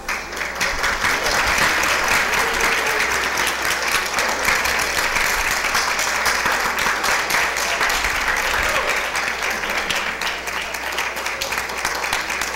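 Audience applauding, a dense steady clapping that eases a little near the end.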